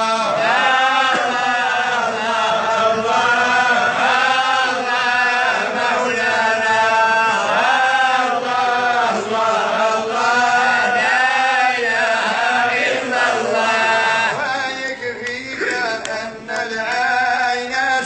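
Background music: a solo voice chanting in long, arching phrases over a steady held drone.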